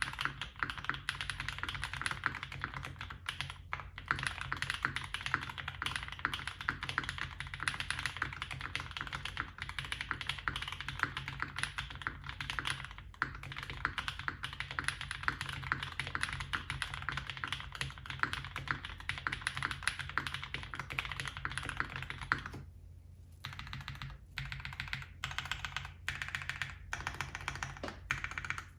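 Fast continuous typing on a custom mechanical keyboard with lubed Cobalt POM linear switches on a polycarbonate plate and GMK keycaps: a dense stream of soft key clacks. The typing stops briefly about three-quarters of the way in, then resumes with separate strokes.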